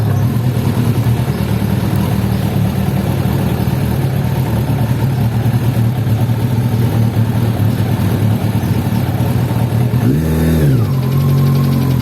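Suzuki Bandit 1200S inline-four engine idling steadily, with one short throttle blip about ten seconds in that rises and falls. The owner is chasing a noise at low revs, below 2500 rpm, which he takes to come from the top of the cylinder head.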